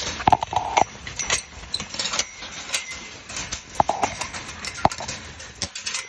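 Puppies scuffling and rustling in wood-shaving bedding around a raw whole chicken, with many small clicks and scrapes. Short high whines or yips come about half a second in and again near four seconds.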